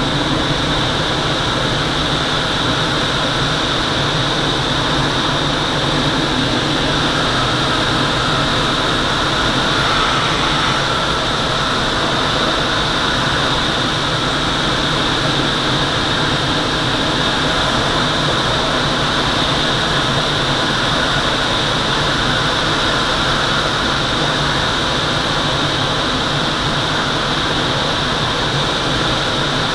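Steady rush of air in a Twin Astir glider's cockpit on aerotow, with the tow plane's engine droning ahead.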